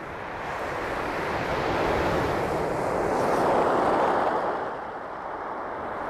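Waves breaking and washing up a shingle beach: one surge swells to its loudest a little past halfway and then falls away.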